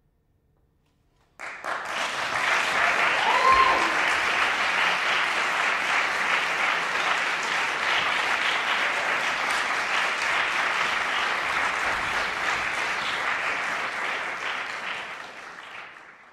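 Audience applauding, starting suddenly about a second and a half in and fading away near the end.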